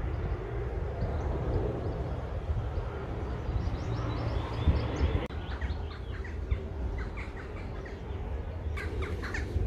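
Wild birds calling in the trees: a run of short chirps starts about halfway through, and a quick cluster of sharper calls comes near the end, over a steady low rumble.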